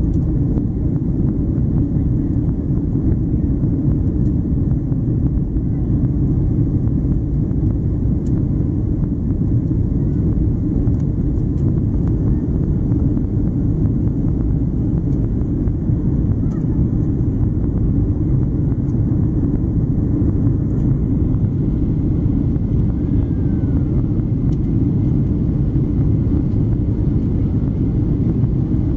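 Steady low rumble of a Boeing 777-200ER's Rolls-Royce Trent engines and rushing air, heard inside the passenger cabin from a window seat during the climb after takeoff.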